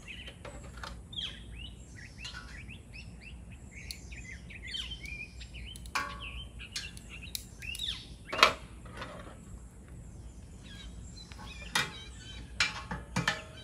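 Birds chirping, with several sharp metallic clicks and clanks as metal tongs lay meat on the grate inside a wood stove built from propane bottles. The loudest clank comes about eight seconds in.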